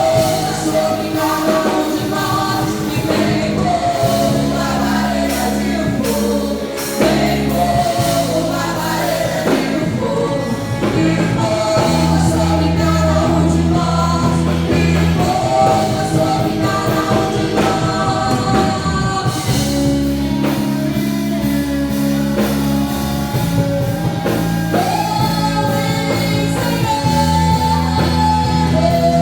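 Gospel praise-and-worship music: sung melody over held low chords in the accompaniment, changing every few seconds.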